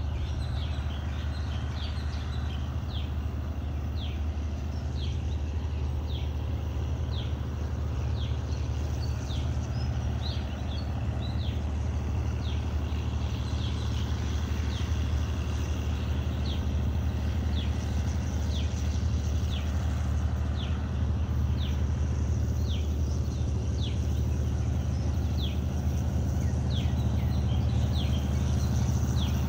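A bird repeating a short, falling high chirp about once a second, over a steady low rumble that slowly grows louder.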